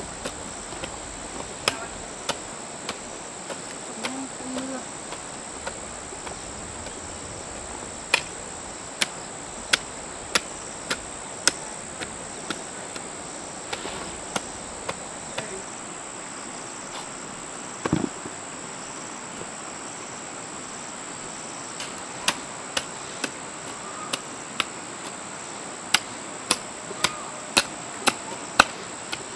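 Insects chirring steadily in one high, thin, unbroken band, with sharp knocks at irregular intervals that come closer together near the end, and one duller thump about halfway through.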